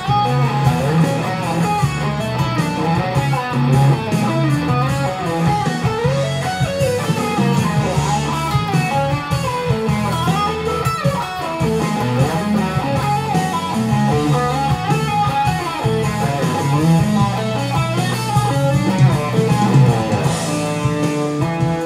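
Electric guitar improvising fast legato lead runs over a backing track with a steady bass line. Near the end the runs give way to a few held, ringing notes.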